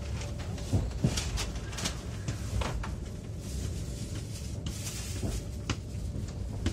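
Inside a moving passenger train carriage: a steady low rumble with scattered sharp knocks and clicks from the car, and a brief hiss about halfway through.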